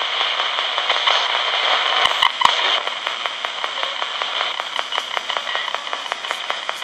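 Ghost box: a RadioShack pocket AM radio sweeping rapidly through the AM band, giving steady static broken by a fast, regular run of clicks as it steps from frequency to frequency. A few louder pops come about two seconds in.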